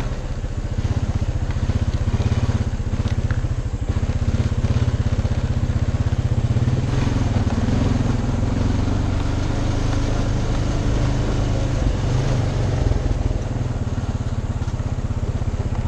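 Honda ATV's single-cylinder four-stroke engine running steadily while riding along a dirt trail, its level rising and falling a little with the throttle.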